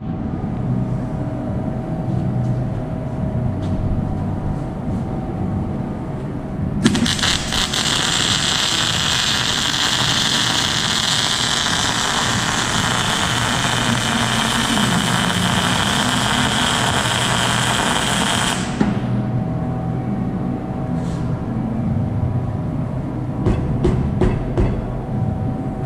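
MIG welding arc on thick steel plate: a loud steady crackling hiss that starts suddenly about seven seconds in, runs for about twelve seconds and cuts off abruptly as the trigger is released. A steady low hum runs underneath, with a few light clicks near the end.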